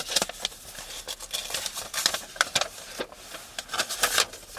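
Close rustling and irregular light clicks of handling: a small slip of paper being looked for and handled.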